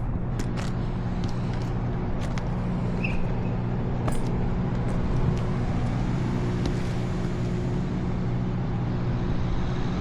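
Portable generator engine running steadily, a constant low droning hum, with a few light clicks and taps over it in the first half.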